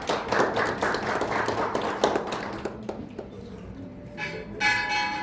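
Audience clapping, which fades out about two and a half seconds in. Near the end a sustained ringing tone with several pitches starts suddenly.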